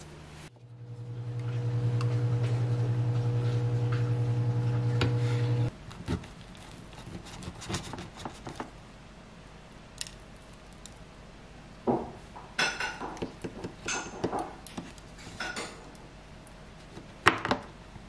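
A steady low appliance hum for about the first five seconds, cutting off suddenly. Then a knife cutting through crusty seed-topped bread on a wooden plate, with scrapes and sharp taps of the blade against the wood.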